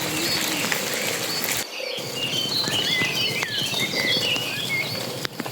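Many small birds chirping over a steady outdoor hiss, with scattered light ticks. The sound drops out briefly just before the chirping starts.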